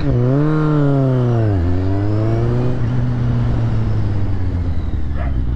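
Motorcycle engine accelerating hard, the revs climbing and then dropping sharply about one and a half seconds in as the throttle closes, then running steadily at lower revs. A dog barks near the end.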